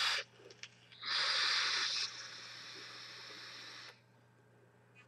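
Airy hiss of a long draw on a Horizon Tech Krixus sub-ohm tank with a ceramic heater, fired at 50 W. It is louder for about a second, then softer for nearly two seconds, and stops about four seconds in. The ceramic heater is slow to heat and only starts vaporizing on the second or third second.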